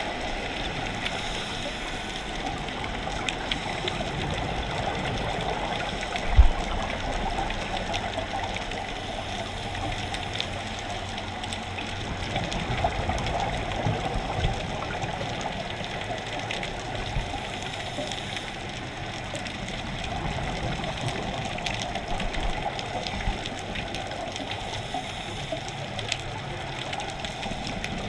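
Underwater sound through a dive camera's housing: a steady muffled rush of water and a scuba diver's bubbles, swelling and fading in slow cycles. A single sharp knock comes about six seconds in.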